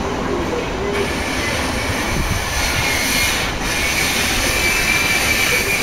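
485-series electric train rolling slowly into the station platform as it arrives. A steady high squeal sets in about a second in as the train slows.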